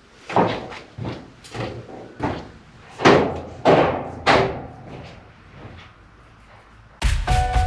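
A series of about seven short, hollow knocks, a little over half a second apart, as the plastic grille is pushed and tapped into place on the BMW E36's front end. Music starts near the end.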